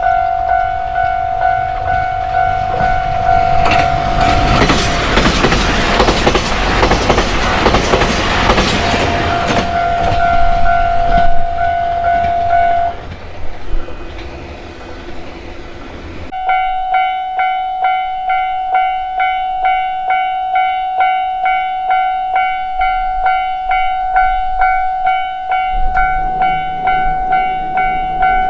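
Japanese railway level-crossing warning bell ringing its repeating kan-kan strokes while a train runs over the crossing, the wheels clattering over the rail joints for about nine seconds. The bell falls silent after the train has passed, then a few seconds later a crossing bell starts ringing again.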